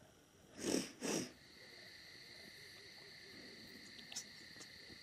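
Faint, steady chirring of crickets at night, with two short scuffing noises about a second in.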